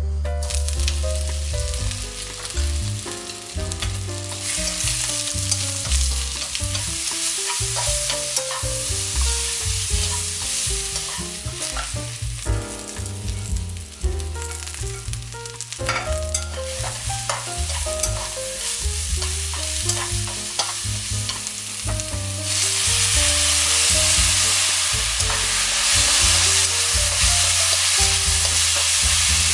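Fish cake and vegetables frying in oil in a pan while being stirred, with a steady sizzle that grows louder near the end.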